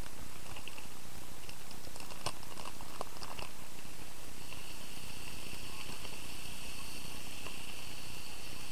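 A domestic cat purring steadily.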